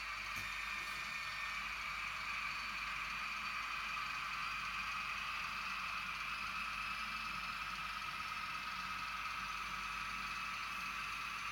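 Model train locomotives running along the layout's tracks, their small electric motors and gears giving a steady whine.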